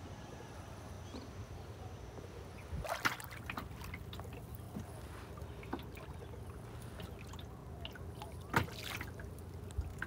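Kayak paddle dipping into calm sea water: two louder splashes about three and eight and a half seconds in, with small drips and trickles between them.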